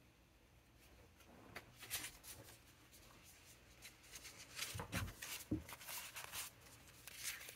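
Soft rustling and papery scraping of ink swatch cards being searched through and handled, with a couple of light knocks about five seconds in.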